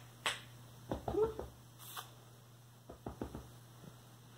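A few soft ticks and rustles of handling, with one short pitched vocal sound about a second in.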